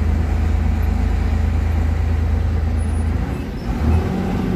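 Mercedes-Benz truck's diesel engine running at low road speed, heard from inside the cab as a steady low drone. The drone dips and swells briefly about three and a half seconds in.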